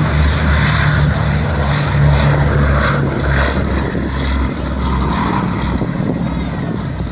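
A B-17G bomber's four radial piston engines droning as it flies by, a deep steady propeller drone that weakens about four and a half seconds in.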